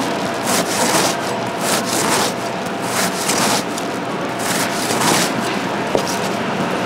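Repeated scraping and rubbing strokes, about two a second, pausing briefly in the middle.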